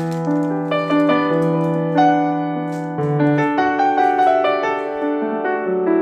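Background piano music: a slow, gentle melody of held notes over sustained low bass notes.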